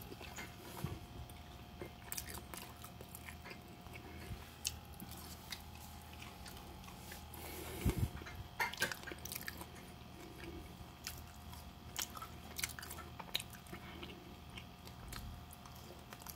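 A person chewing fries close to the microphone: irregular soft clicks and smacks of eating, busiest about eight seconds in.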